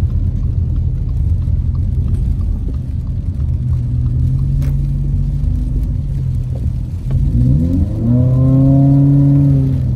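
Car engine and road rumble heard from inside the cabin. About seven seconds in, the engine revs rise as the car accelerates, hold steady and louder for a moment, then ease off.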